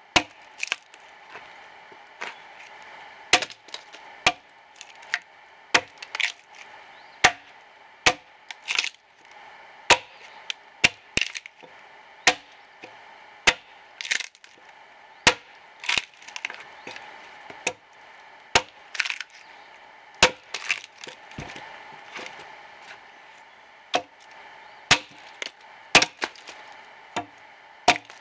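Axe chopping into the side of a dead ash log, repeated sharp strikes at an uneven pace of roughly one or two a second, some followed by a brief crackle of wood splitting away.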